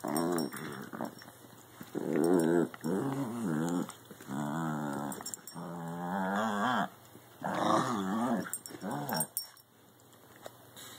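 Two small Chihuahua-mix dogs, a Jack Russell cross and a Shih Tzu cross, growling at each other in play as they wrestle. The growls come in about four long, wavering bouts, then die down near the end.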